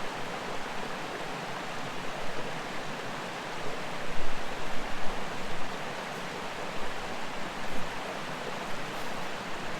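Mountain creek water rushing and splashing steadily, with a few louder, uneven sounds about four to five seconds in.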